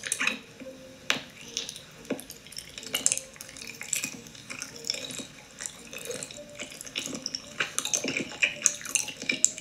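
Close-miked ASMR eating: wet, sticky mouth sounds of biting and chewing an edible look-alike laundry pod, with many small irregular clicks and smacks.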